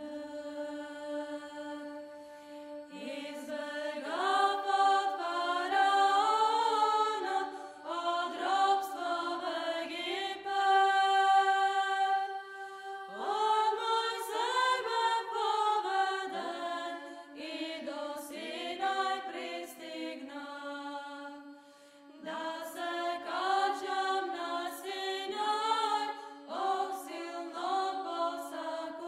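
A choir of Orthodox nuns' women's voices chanting unaccompanied, with one low note held steady underneath the moving melody. The singing breaks off briefly a little after two-thirds of the way through, then resumes.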